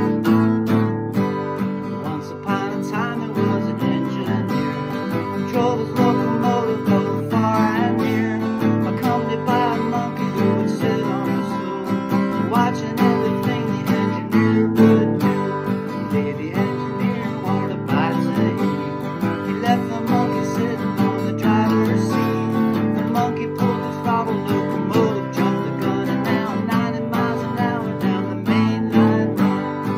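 Acoustic guitar strummed steadily, with a man singing over it at intervals.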